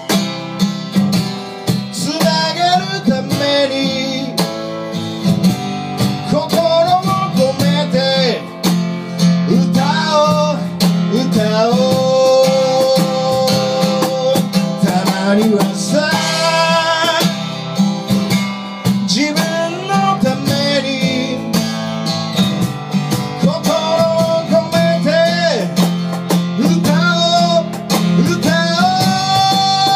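Live band music: a guitar strummed steadily under a sliding, held melody line, most likely a singing voice.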